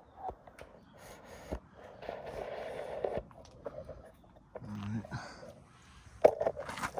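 Irregular handling noises: scattered knocks and clicks with stretches of scraping and rustling, and a sharp knock about six seconds in.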